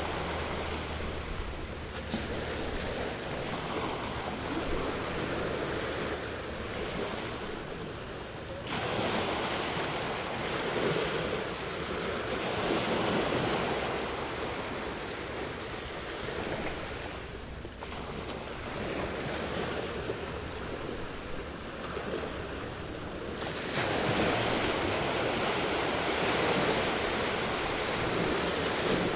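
Ocean surf washing and breaking in a continuous rush, swelling louder about a third of the way in and again near the end.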